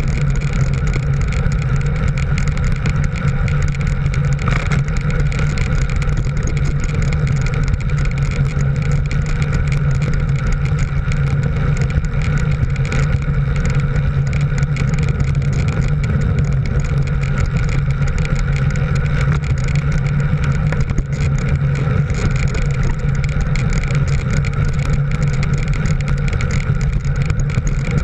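A motor vehicle's engine drones steadily at an even cruising speed, with a constant rush of road and air noise that neither rises nor falls.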